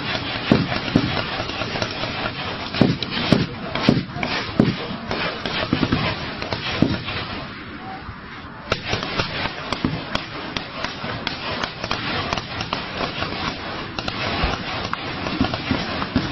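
Heavy gunfire from several weapons: a dense, irregular stream of shots with a brief lull about halfway through.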